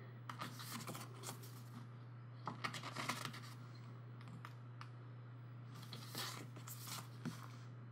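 Pages of a glossy photo book being turned and handled: soft paper rustles and slides in a few short clusters, over a steady low hum.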